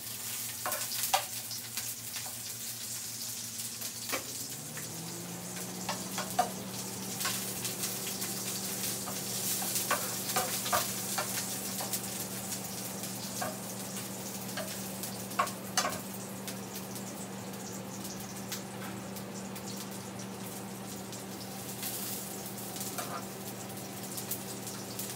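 Garlic sizzling in olive oil in an electric skillet as it fries toward browning, with a metal spatula clicking and scraping against the pan now and then as it is stirred. A low steady hum comes in about four seconds in.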